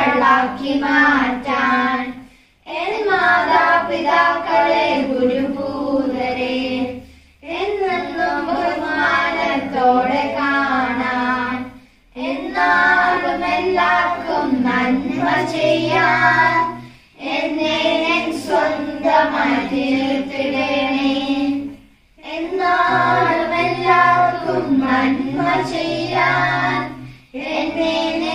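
A family, children's voices foremost with adults, singing a hymn together in phrases of about four to five seconds, with short breath pauses between them.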